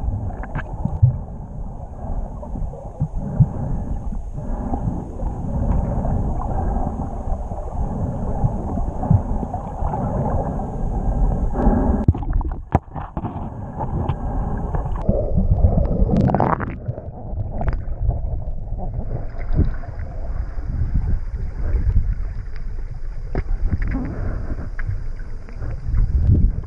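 Muffled underwater sound from a submerged action camera: uneven, low water noise with gurgling as the housing moves through the water.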